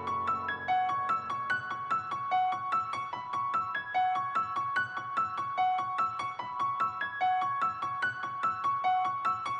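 Background music: a gentle piano-like keyboard melody of short, evenly spaced repeating notes.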